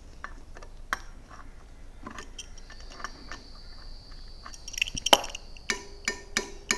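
Light metallic clicks of a small adjustable spanner working the spoke nipples of a Sur Ron wheel, with a high ringing note held for a few seconds midway. Near the end, quick taps of an Allen key on the steel spokes, about three a second, each spoke ringing out its tune after being tightened.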